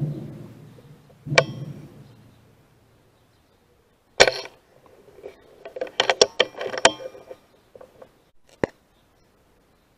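A single sharp gunshot about four seconds in, fired at a crow perched on a wire; a quick string of clicks and knocks follows around six to seven seconds.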